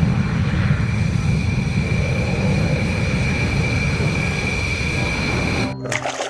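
Jet aircraft engine sound: a steady low rumble with a high whine held on one pitch, cutting off abruptly about half a second before the end.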